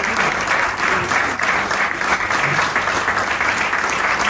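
Audience of a crowded hall applauding, a steady dense clapping that holds throughout.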